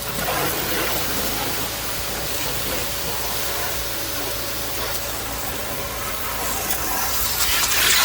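Electric high-pressure washer running with a steady hiss of water spray, growing louder near the end.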